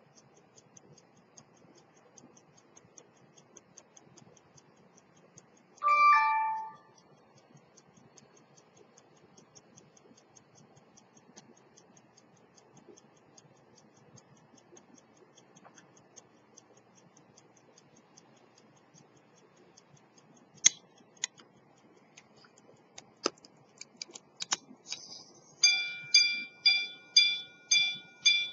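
Swiss quarter-repeater pocket watch movement ticking fast, with a single two-tone gong ring about six seconds in. Near the end come a few sharp clicks from the repeater works, then the hammers start striking the gong in an even series of about three ringing strikes a second, the repeater sounding the hour after its repair.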